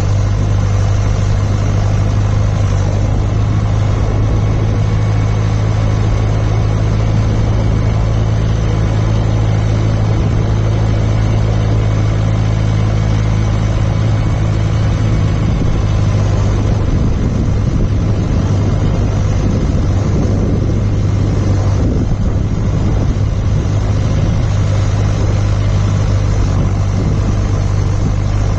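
John Deere 6400 tractor's four-cylinder diesel engine running at a steady speed, a constant loud drone.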